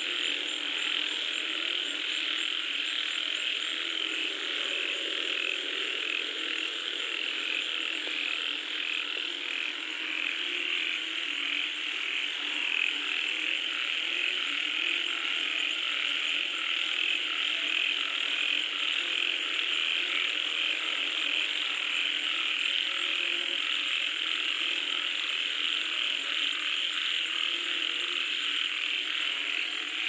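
A night chorus of many frogs calling at once: a dense, steady din of overlapping high calls, with lower croaks repeating underneath.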